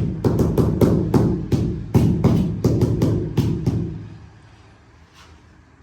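Background music with a steady drum beat, about three beats a second, that fades out about four seconds in.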